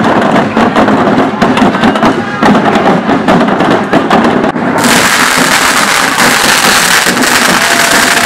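Fireworks going off in a street: a dense run of sharp cracks and bangs, then about five seconds in a loud, steady hiss sets in, like a firework burning on the ground.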